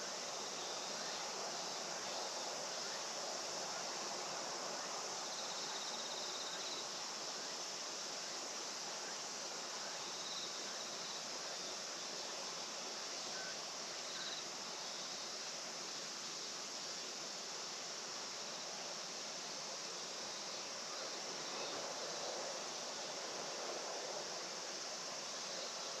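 Steady chorus of insects in a rice field, a continuous high-pitched hum over a soft, even background hiss.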